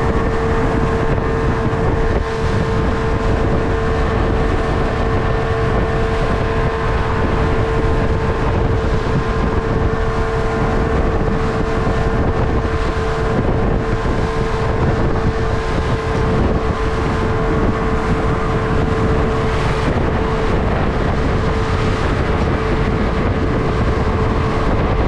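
Speedboat engine running steadily at cruising speed, a constant drone with a steady whine, under wind noise on the microphone.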